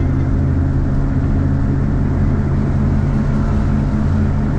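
Motorhome engine and road noise heard from inside the cab while driving along, a steady low hum with no change in pace.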